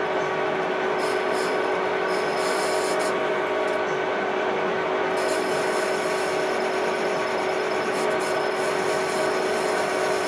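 An electric power tool running steadily with a constant hum, while a higher hiss from the tool working against a part comes and goes.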